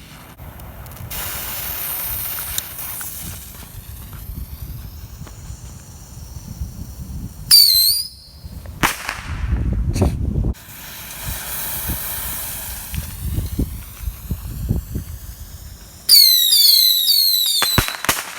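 Bottle rockets being launched: long hissing stretches, then sudden whistles that fall in pitch. About two-thirds of the way through, several whistle together, followed by a few sharp cracks as they burst.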